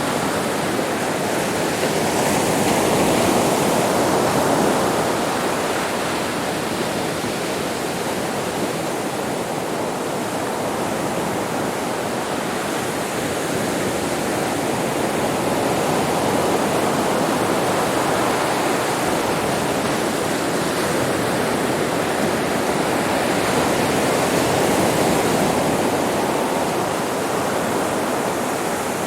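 Sea waves washing onto a beach: a continuous rushing surf that swells slightly louder a few seconds in and again near the end.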